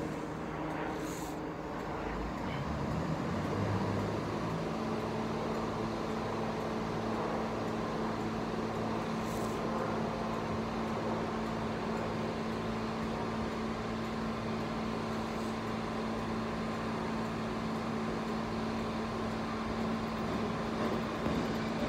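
Diesel train engine running steadily, a low hum that settles onto one held note about four seconds in.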